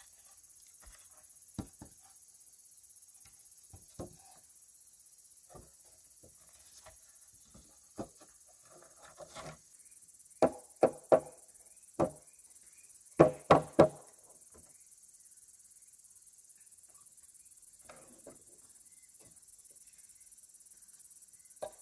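Scattered knocks on wood, with a quick run of about seven loud strikes in the middle, against a steady high chirring of insects.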